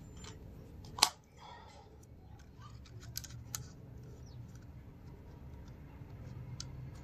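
Plastic clicks and knocks from the housing of a Graco Ultimate MX handheld airless sprayer as it is pressed and worked to close, with one sharp, loud click about a second in and a few lighter clicks later. Something inside is catching and keeps the housing from closing fully.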